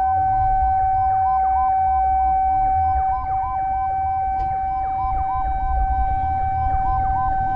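Emergency siren sounding: a steady held tone with fast falling sweeps repeating several times a second over it, and a low rumble underneath.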